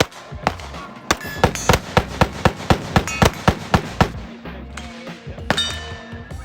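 Semi-automatic gunfire at a shooting range: a steady string of about a dozen shots, roughly four a second, with a few single shots before and after.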